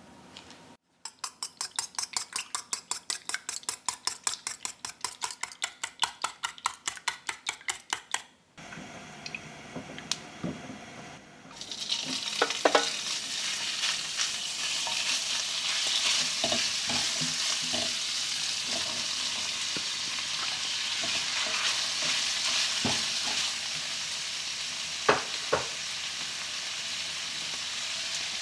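Eggs and milk beaten rapidly in a stainless steel bowl, about five strokes a second, for several seconds. After a pause, pork belly slices start sizzling in a hot stone-coated wok and keep frying steadily, with a few sharp taps as chopsticks stir them.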